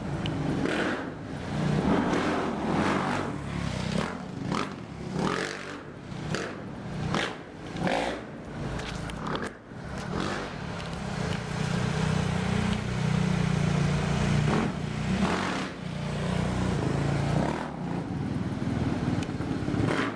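Motorcycle engine running steadily, under irregular rubbing and scraping of the handheld camera against clothing or the bike, heaviest in the first half.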